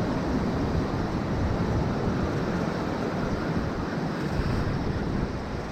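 Ocean surf washing and breaking over rocks, mixed with wind buffeting the microphone.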